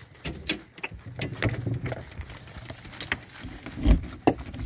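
Keys jangling and clicking at a front door's lock, with a dull thump about four seconds in.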